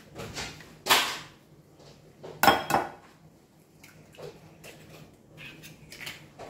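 Eggs being cracked against the rim of a glass mixing bowl: a sharp tap about a second in, then a loud double tap at about two and a half seconds, with fainter clicks of shell and glass afterwards.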